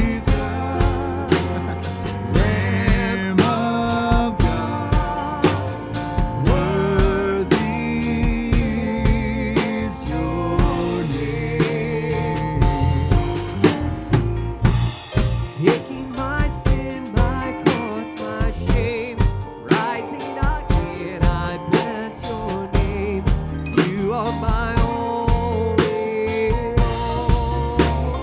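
Live worship band playing an instrumental passage: drum kit keeping a steady beat under bass, chords and a wavering lead melody.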